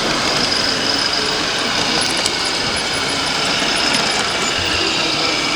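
Steady hall noise with the engine sound of radio-controlled model trucks idling, and a few faint ticks.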